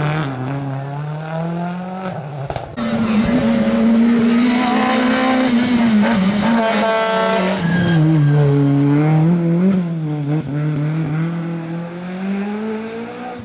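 Rally car engine revving up and easing off repeatedly, its pitch rising and falling, with tyre squeal as the car drifts. The sound breaks off abruptly about three seconds in and goes on at a higher pitch.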